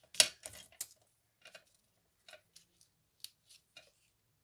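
Hands handling cardstock and a small clear acetate strip on a cutting mat. A sharp knock comes about a quarter second in, followed by a scatter of short paper crackles and light taps.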